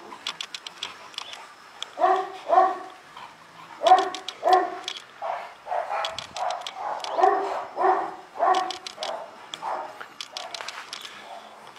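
Illyrian Shepherd dog barking: a run of short barks, many in quick pairs, starting about two seconds in.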